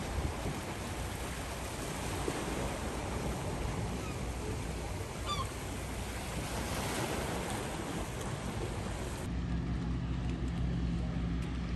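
Small waves lapping and washing against a rocky shore, with some wind noise. About nine seconds in, the sound cuts abruptly to a motorboat's engine humming steadily as it cruises past.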